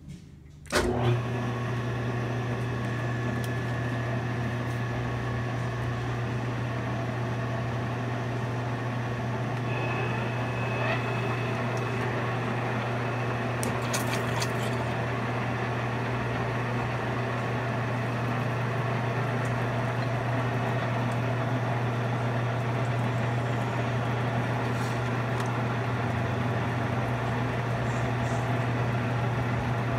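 Holbrook metal lathe starting up about a second in, then running steadily with a strong low hum, coolant splashing off the spinning chuck.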